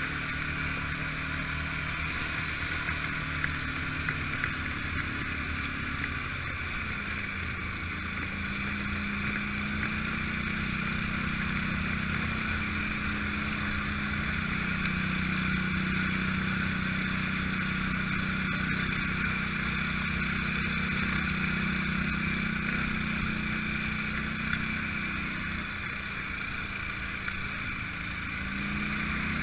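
ATV engine running steadily. Its note steps up about a quarter of the way through, holds, then drops back near the end.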